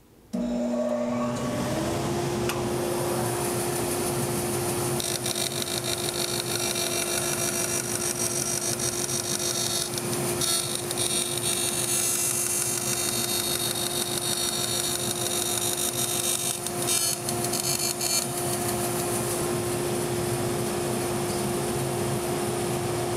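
Dust collector and Laguna 14|12 bandsaw starting up, their hum rising over the first two seconds, then running steadily. From about five to eighteen seconds in, a carbide-tipped bandsaw blade cuts a kerf into a laminate-covered plywood jig base, adding a higher-pitched cutting noise.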